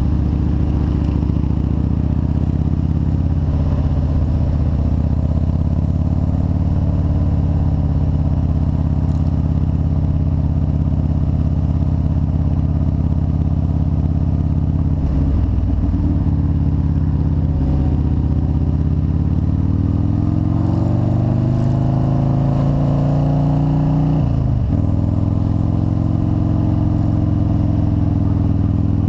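Motorcycle engine running under way, heard from the bike itself: a steady drone that dips briefly midway, then rises in pitch over several seconds and drops abruptly about three-quarters of the way through before settling again.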